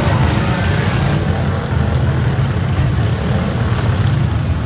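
V8 demolition derby cars' engines running in a loud, steady low drone.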